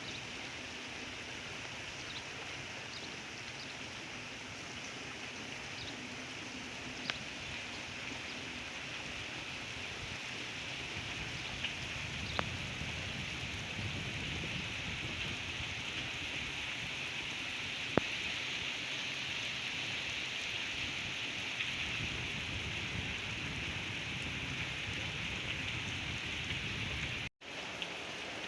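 Heavy rain pouring steadily, with a few sharp taps of drops striking something close by. The sound cuts out briefly near the end.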